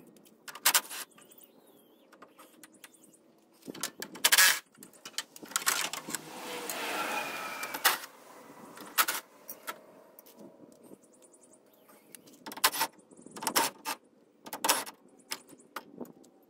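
Cordless drill running in short bursts to drive out fasteners, with one longer run of about two and a half seconds near the middle, mixed with metallic clinks and clatter of loose hardware and tools.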